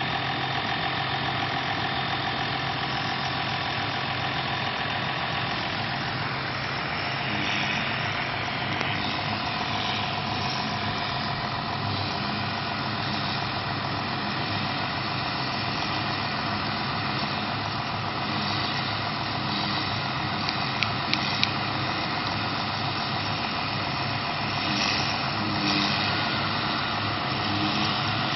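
John Deere 6920S tractor running steadily under load, driving a trailed Mengele forage harvester chopping grass. There are a few sharp clicks about two-thirds of the way through.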